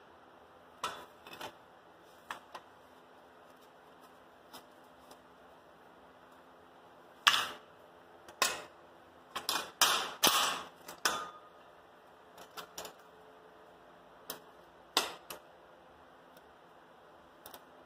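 Scattered, irregular knocks and clatters of hard objects being handled, a cluster of them about halfway through, with quiet between.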